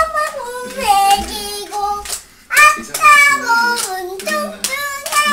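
A six-year-old girl singing a song, with a short break about halfway through before she carries on.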